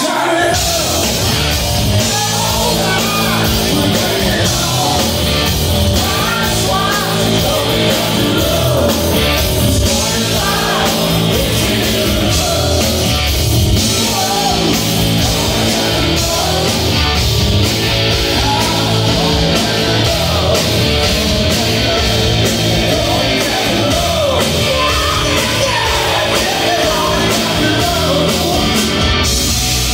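Rock band playing live, with electric guitar, bass and drum kit under a male lead vocal. The full band comes in all at once at the start.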